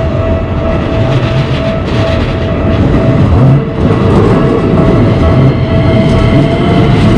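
Train running through a Japanese railway level crossing with a heavy steady rumble, while the crossing's warning bell keeps up its repeating kan-kan ring.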